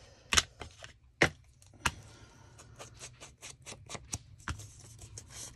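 Light clicks and taps of small craft supplies being handled on a work table: three sharper knocks in the first two seconds, then a run of quick faint ticks.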